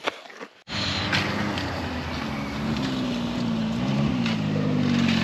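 Snowmobile engine running at low speed, starting abruptly less than a second in; its pitch rises and dips slightly near the middle and it grows a little louder.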